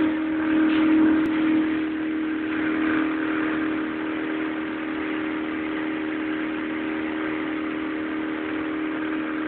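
Motorboat engine running at a steady speed: a constant drone with a strong hum at one pitch, over a steady rush of noise.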